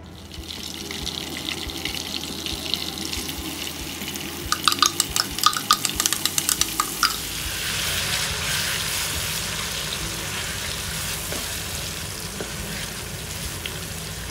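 Coarsely blended chilli paste sizzling in hot oil in a wok as it is stirred with a wooden spatula. A quick run of sharp clicks and taps comes about five seconds in, then a steady frying hiss.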